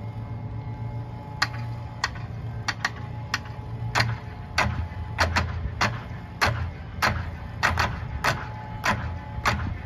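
Sparse, sharp percussive clicks from a marching percussion ensemble, about one every half to two-thirds of a second and coming more often as it goes on, some in quick pairs, over a low steady hum.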